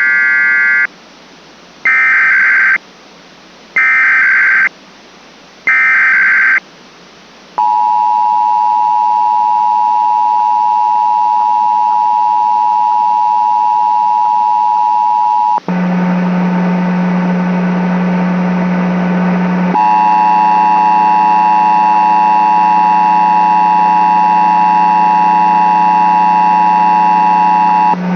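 Emergency Alert System test signals: four short warbling SAME data bursts about two seconds apart, then the steady two-tone attention signal held for about eight seconds. About halfway through, a louder, buzzier tone with a low hum under it takes over and keeps going, changing in character a few seconds later.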